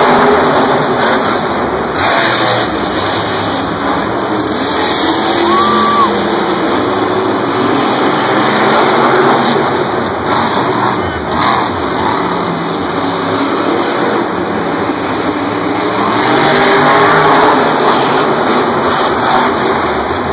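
Monster trucks' supercharged V8 engines racing flat out, a loud continuous roar that rises and falls as the trucks rev, land jumps and accelerate.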